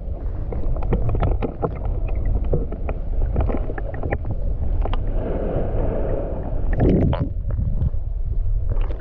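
Muffled underwater sound of shallow surf picked up by a camera held below the surface: a steady low rumble of moving water with many scattered clicks and crackles.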